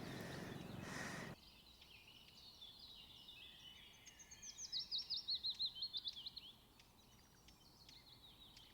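Songbirds singing, with one bird giving a quick run of high, falling notes in the middle. Over the first second or so there is a faint steady rushing that cuts off suddenly.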